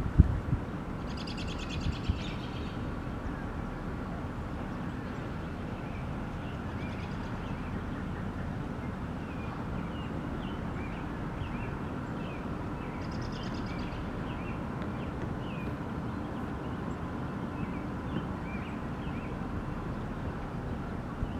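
Small birds chirping repeatedly over a steady low outdoor background noise, with two short, rapid high trills: one about a second in and one just past the middle.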